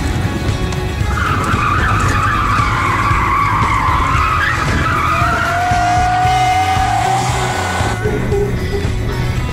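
Car tyres squealing in a long wavering skid for several seconds, over background rock music.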